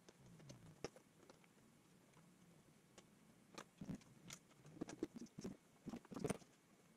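Faint scattered clicks and light knocks as the batwing fairing is handled and fitted onto its mounts, sparse at first, busier in the second half and loudest a little past six seconds in.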